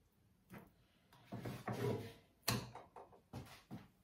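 Kitchen handling sounds: raw pork pieces being set down on a wooden cutting board and a metal roasting pan being moved on the counter. They come as a few short, soft knocks and scrapes, the sharpest about two and a half seconds in.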